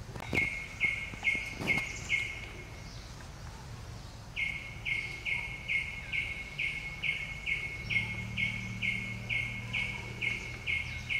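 A bird calling a short note over and over, each note dropping a little in pitch, about two a second: a run of five, a pause of about two seconds, then a longer steady series.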